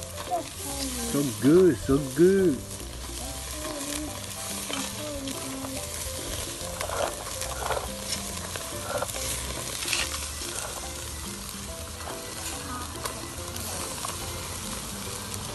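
Meat and a whole fish sizzling over flaming charcoal on a small kettle grill, a steady crackling hiss. About two seconds in, three short rising-and-falling pitched calls stand out louder than the sizzle.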